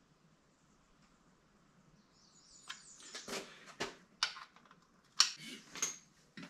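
Hand tools clicking and knocking against an outboard's lower unit and water pump housing as its bolts are torqued down: after a couple of seconds of near quiet, a string of separate sharp clicks about half a second apart.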